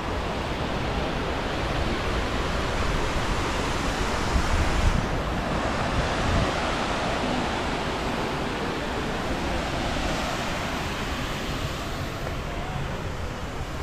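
Steady rush of falling water from a waterfall, with wind buffeting the microphone.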